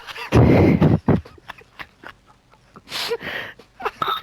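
A sleeping man snoring: one long, loud snore about half a second in, followed by quieter breathy sounds, one around three seconds in.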